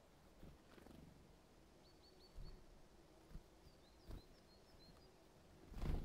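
Faint high, thin chirps of small songbirds at a feeder: a quick series of four about two seconds in, and more scattered calls around four to five seconds. Soft low thumps come now and then, the loudest near the end.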